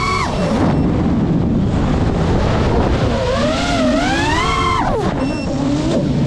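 GEPRC Mark 5 FPV quadcopter's brushless motors whining, the pitch dropping as the throttle comes off, rising again about three seconds in and falling sharply about five seconds in, over rushing wind noise.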